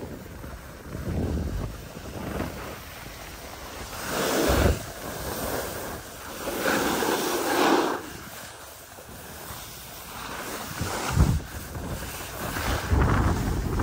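Skis sliding and scraping over groomed, packed snow, with wind rushing over the microphone. The noise swells in several surges.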